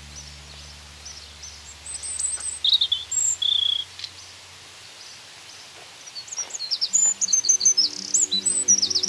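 Small songbirds chirping, with quick high trills and short calls that come loudest about two seconds in and again in the last couple of seconds. Faint low held notes of background music sit underneath at the start and again from about seven seconds in.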